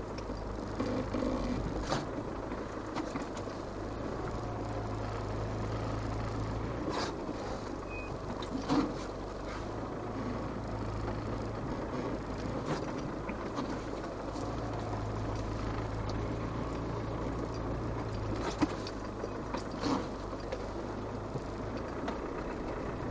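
Land Rover Defender 110's 300Tdi four-cylinder turbodiesel heard from inside the cab, running at a steady drone that strengthens and eases a few times as the truck creeps through deep snow. A few short knocks and clunks are heard over it.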